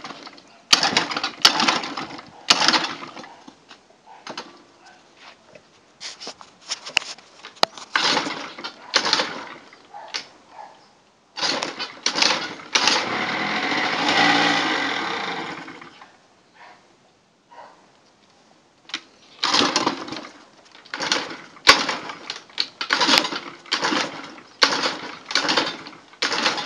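Honda Spree NQ50's 49 cc two-stroke engine being kickstarted again and again: a long run of short cranking bursts with pauses between kicks, and one longer stretch of about three seconds about halfway through, without the engine catching and running. The scooter won't start; the cause turned out to be a stuck float in the carburetor.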